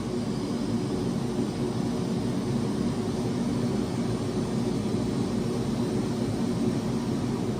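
2016 Lasko side-discharge heat pump running in cool mode: a steady hum with airflow noise, with no change in level.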